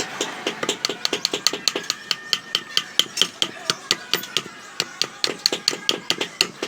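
Blacksmith's hand hammer forging a knife blade on an anvil: a quick, even run of metal-on-metal strikes, about five a second, each with a short ring.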